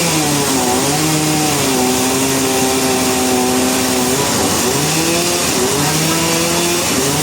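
Engine-driven sawmill running, its engine note sagging twice under load and climbing back, over a steady hiss of cutting.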